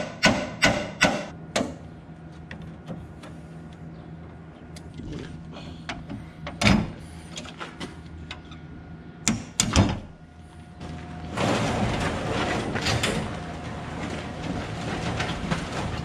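A ratchet wrench clicks in quick, even strokes on the feed wagon unloader's bolts for the first second or two. A few metal knocks follow. From about eleven seconds in there is a steady rattling scrape as the worn unloading chain is dragged off the wagon. A steady low hum runs underneath throughout.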